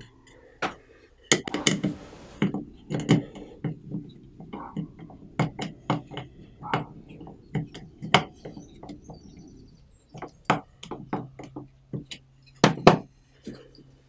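Phillips screwdriver bit of a Leatherman Surge multitool backing a wood screw out of a wooden block: a string of irregular clicks and creaks as the screw turns and the tool is re-gripped, with two louder clacks a little before the end.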